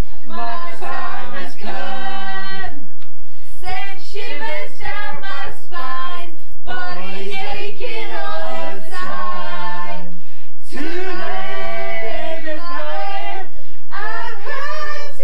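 Loud unaccompanied singing by a small group of men, several voices singing a song together a cappella.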